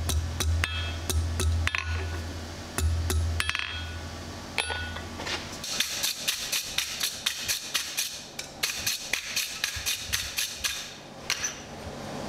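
Hand hammer striking hot mild steel on an anvil in irregular blows. About five seconds in, a wire brush scrubs the steel in quick strokes, about four a second, stopping shortly before the end.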